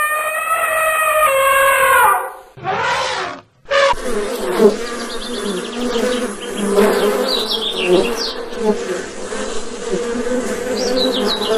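A long, drawn-out animal call that falls slightly in pitch, then a shorter call, then a buzzing insect from about four seconds in, steady, with quick high chirps over it.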